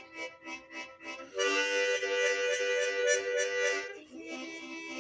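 Background music with a reed-like instrument: a rhythmic run of short notes, then a louder held chord from about a second and a half to four seconds in, then softer notes again.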